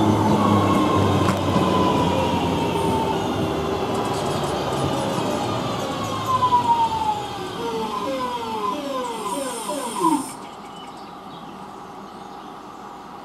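Class 323 electric multiple unit braking into the platform: the train's running rumble under whining tones from its electric drive that fall steadily in pitch, then a run of quick falling sweeps. About ten seconds in the sound drops away to a quieter steady hum as the train comes to a stand.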